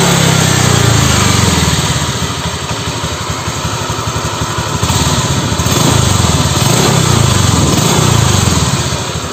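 Honda Vario 125 scooter's single-cylinder four-stroke engine running, its speed sagging and then picking up again, and easing off near the end. The engine is noisy and smoking, which the mechanic puts down to a worn, loose-fitting piston and a worn crankshaft bearing.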